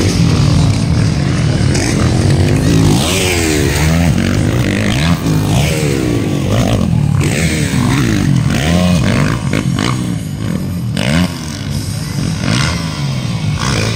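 Motocross dirt-bike engines racing on the track, revving up and dropping in pitch again and again as the riders shift and work the throttle, with more than one bike heard at once.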